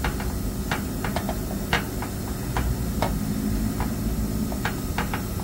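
Steady low hum of a running VRF air-conditioning outdoor unit, with about eight irregular light clicks and taps over it.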